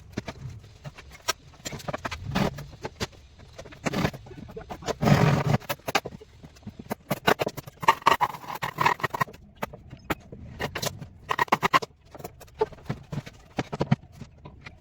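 Hand wood-carving work on a wooden headboard: irregular sharp taps and knocks, with a few longer, louder bursts.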